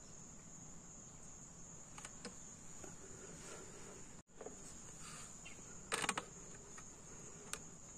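Insects chirring in a steady high-pitched drone, with a single short knock about six seconds in.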